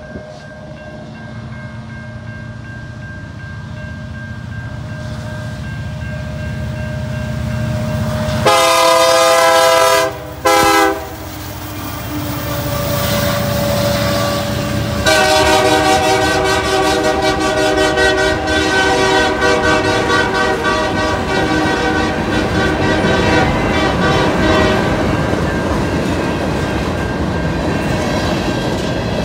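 Diesel freight locomotive approaching a grade crossing, its engine rumble building, then its air horn sounding a long blast about eight seconds in and a short one just after. From about halfway the horn is held in one long blast as the train passes, with wheels clacking over the rail joints.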